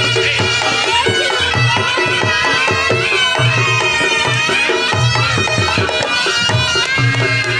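Reog Ponorogo gamelan music: a shrill, wavering slompret (Javanese shawm) melody over drums and gongs, with a repeating low beat.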